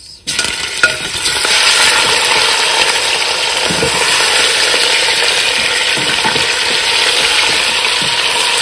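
Raw meat chunks hitting hot ghee in a steel pot, setting off a loud, steady sizzle that starts abruptly just after the start, with a wooden spoon stirring the meat through it. A single sharp knock sounds a little under a second in.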